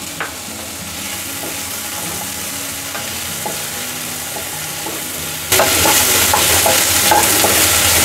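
Onions and chopped tomatoes sizzling in hot oil in a kadai while a wooden spatula stirs and scrapes them around the pan. The sizzle jumps suddenly louder about five and a half seconds in.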